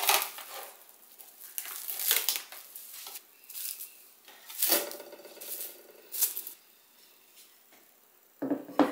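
Kitchen utensils and dishes being handled: scattered clinks, taps and scrapes, with a short ringing clink a little past halfway.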